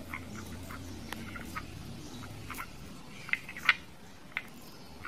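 Homemade cornflour slime being squeezed and pulled apart by fingers in a plastic bowl: soft sticky clicks and squelches, the sharpest a little over three seconds in.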